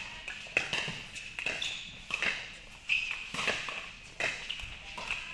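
Pickleball paddles popping against plastic balls in play on the neighbouring courts, a run of sharp, irregular pops about every half second, with a short ring in the indoor hall.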